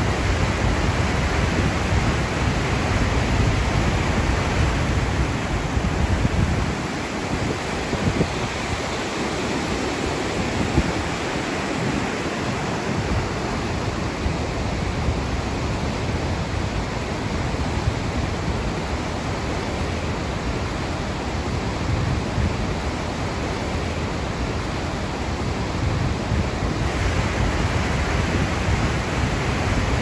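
River rapids and a small waterfall rushing over boulders in a steady, full roar of whitewater.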